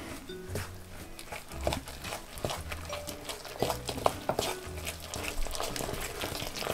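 Wooden spoon stirring thick cake batter in a glass mixing bowl, with irregular scrapes and knocks of the spoon against the glass, over quiet background jazz music.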